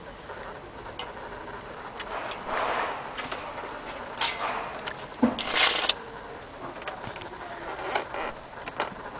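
Irregular clicks and light knocks from a wooden wall clock case being handled, with a louder scraping noise lasting under a second about five seconds in.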